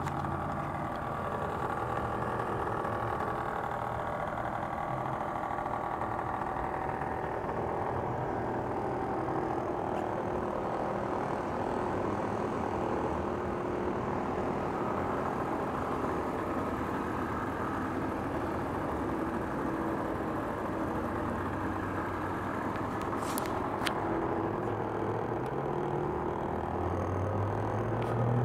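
Vespa ET2's 50cc two-stroke scooter engine idling steadily, its engine speed rising briefly near the end.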